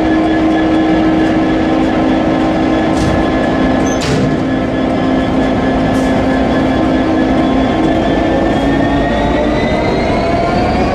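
Diesel-electric shunting locomotive with an EMD two-stroke V12 engine running with a steady drone, its pitch rising from about eight seconds in as the engine powers up. A few sharp knocks come between three and six seconds in.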